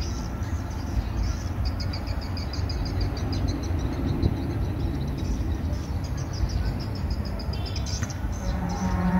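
Outdoor ambience: a steady low rumble with birds chirping rapidly and high-pitched over it, busiest a couple of seconds in.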